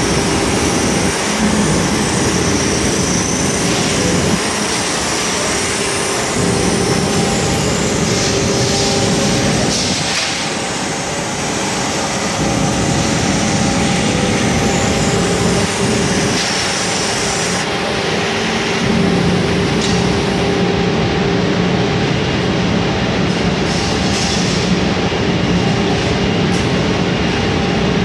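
CNC diamond edge-grinding machine for car-window glass running, its diamond-wheel spindle grinding the glass edge under coolant water. A loud, steady machine noise with a low hum and a higher steady tone.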